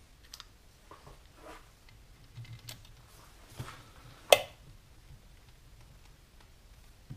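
Small, irregular metallic clicks and scrapes of a socket wrench and the relief valve cap on a cast-iron Farmall Super M hydraulic Lift-All control housing, as the cap is pushed in against a stiff spring and started on its threads. One sharper metal clack about four seconds in.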